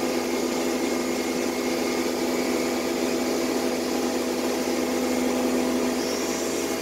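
Steady mechanical hum from a running machine, holding one even pitch with no change in level.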